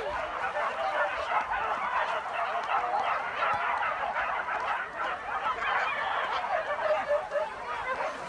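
A pack of hunting dogs barking and yelping together in one continuous chorus of many overlapping calls.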